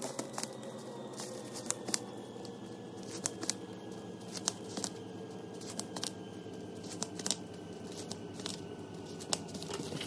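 Double-sided tape being pulled from the roll and pressed in strips onto a plastic-wrapped styrofoam tray: scattered crinkles and sharp ticks of tape and plastic wrap, over a faint steady hum.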